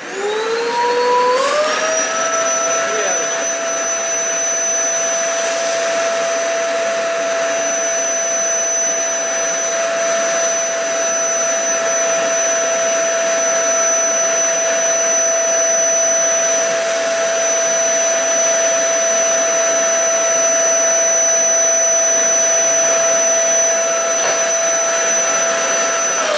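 Vacuum cleaner switched on, its motor whine rising over about two seconds to a steady pitch, then running steadily while sucking up broken windshield glass fragments inside the car; the whine starts to fall as it is switched off at the very end.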